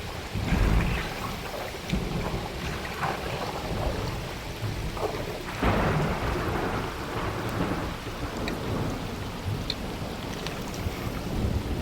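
Heavy rainstorm: steady rain falling, with low rumbles of thunder that swell and fade through it.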